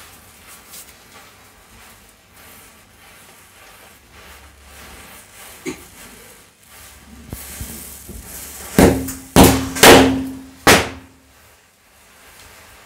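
Four loud firecracker bangs in quick succession, about nine to eleven seconds in, set off by a burning matchstick chain.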